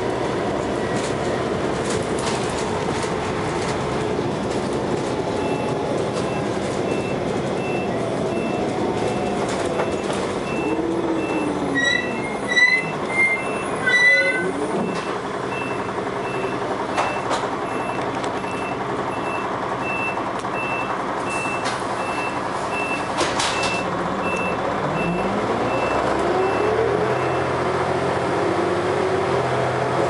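Dennis Arrow double-decker bus under way, heard from inside the cabin: its diesel engine and ZF automatic gearbox running steadily, the engine note falling and then rising again near the end through gear changes. A faint beep repeats about every half-second through most of it, and a short run of louder beeps comes about twelve seconds in.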